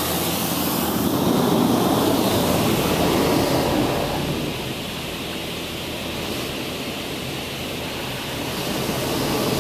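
High-pressure water jets of a LaserWash touchless car wash spraying the car, heard from inside the cabin as a steady hiss of spray. It is loudest for the first few seconds, eases off as the jets move along, and builds again near the end.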